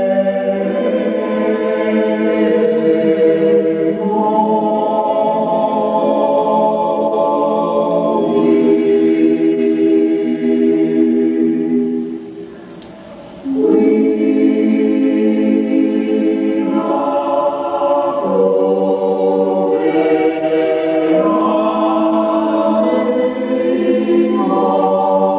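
Choir singing sustained, slowly changing chords in several parts, with a short break between phrases about halfway through.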